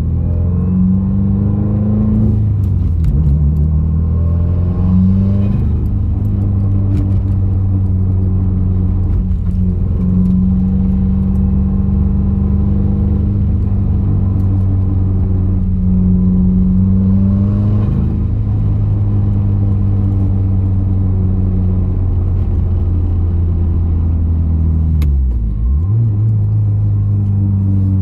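Cabin drone of a 2020 Subaru WRX's turbocharged flat-four engine cruising, the engine note mostly steady and shifting in pitch a few times, with a brief dip and recovery near the end. The car is running with a lot of vibration after throwing a misfire on cylinder 1.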